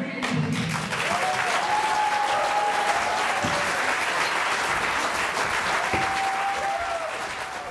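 Audience applauding, many hands clapping steadily, with music playing underneath.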